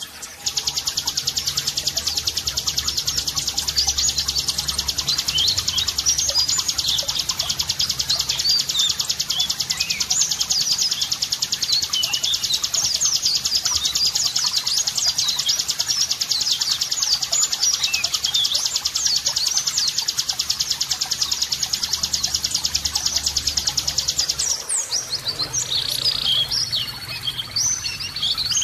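Small songbirds' song from a shama training (masteran) recording: a fast, continuous high-pitched buzzing trill with quick sharp chirps over it and a low hum underneath. About 25 seconds in, the trill stops and a different bird's chirping phrases take over.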